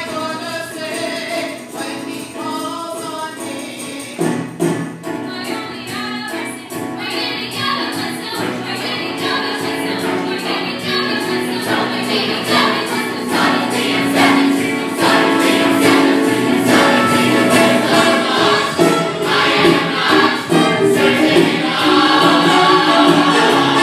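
Musical theatre ensemble singing together over a band accompaniment with a steady beat, growing louder through the number.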